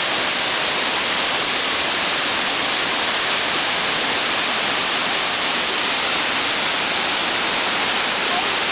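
Steady rush of water tumbling over rocks in a small creek cascade.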